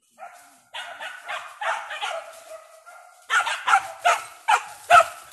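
Hunting dogs giving tongue: drawn-out yelping calls, then from about three seconds in a fast run of loud barks, two or three a second.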